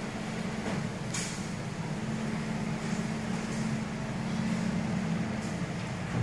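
Steady mechanical hum with a held low tone, with a few brief hisses.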